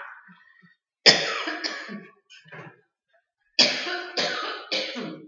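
A person coughing: one cough about a second in, then a run of three coughs in quick succession near the end.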